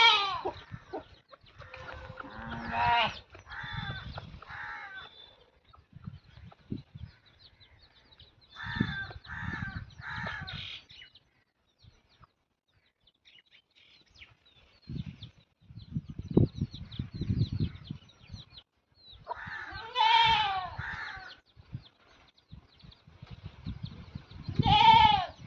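Goats bleating now and then: three short calls in a row, and later two longer wavering bleats. Low knocks and rustling fill the gaps between the calls.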